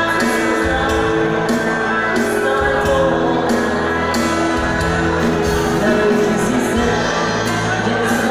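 Live band playing amplified music over the PA, with singing.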